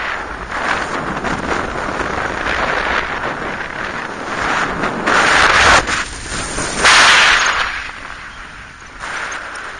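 Wind rushing over the microphone of a camera mounted on a flying paraglider's risers, a steady rush that surges louder twice past the middle and eases near the end.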